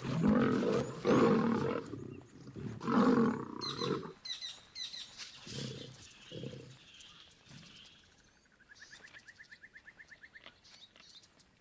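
Male lions fighting, snarling and roaring loudly for about the first four seconds, then a few lower growls. Near the end a faint rapid trill is heard.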